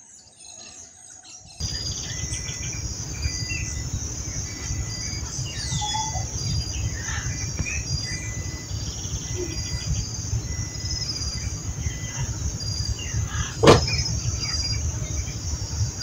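Insects droning steadily at a high pitch with short repeated chirps, and birds calling here and there, over a low uneven rumble. The chorus starts suddenly about a second and a half in, and there is one sharp click near the end.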